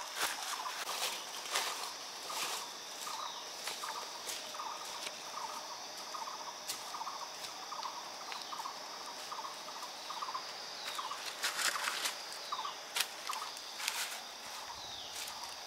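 Forest ambience: a bird calls in a long series of short repeated notes, about two or three a second, over a steady high insect drone. Near the end, bare feet crunch and click over leaf litter and rocks.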